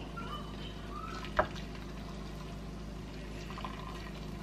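Water poured in a thin stream from a glass electric kettle into a ceramic bowl, faint and steady, with one sharp click about a second and a half in.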